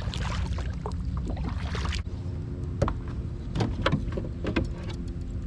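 Kayak being paddled through shallow water: paddle blades dipping and splashing, with a few short knocks. A steady low hum runs underneath.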